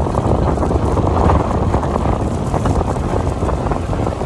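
Steady wind rush buffeting the microphone of a phone held out on a moving motorcycle, mixed with the bike's running and road noise.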